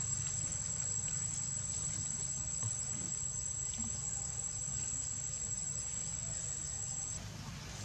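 Forest insects giving a steady, high-pitched drone that cuts off suddenly near the end.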